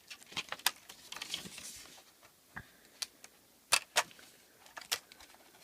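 A run of sharp, irregular clicks and light taps from the TV's flat ribbon cable and its connector latch being flipped up and the cable pulled out, with faint rustle between them.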